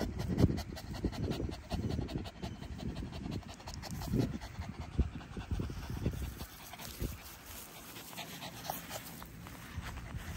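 French bulldog panting quickly and hard with its tongue out, cooling itself off in the heat; the panting is stronger in the first few seconds and grows fainter toward the end.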